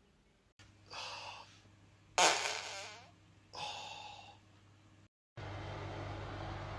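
Three short farts over a steady low hum, the loudest and longest about two seconds in. After an abrupt cut, a louder steady hum and hiss.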